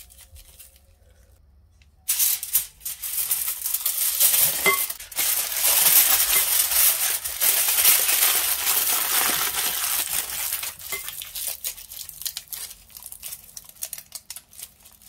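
Aluminium foil crinkling and crackling as it is wrapped and pressed tightly around a roll. It starts suddenly about two seconds in, is loudest through the middle, and thins to scattered crackles near the end.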